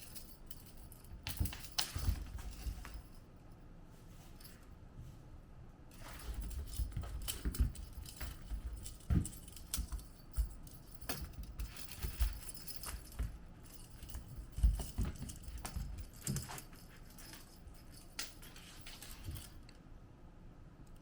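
Kittens playing with toys: irregular jingling, light clicks and taps, with soft thumps on the floor.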